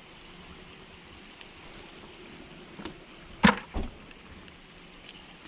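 Light rain falling steadily, with two sharp knocks about a third of a second apart roughly three and a half seconds in.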